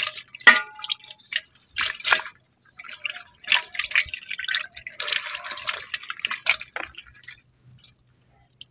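Water splashing and dripping in a pot crowded with live climbing perch (koi fish) as a hand grabs among the wriggling fish. The splashes come in irregular bursts, busiest about five to seven seconds in, then die away near the end.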